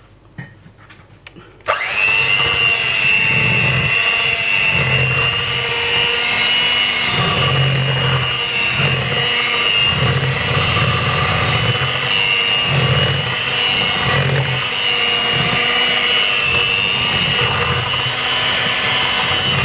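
Electric hand mixer switched on about two seconds in, its motor whining steadily while the beaters churn grated carrot into carrot cake batter.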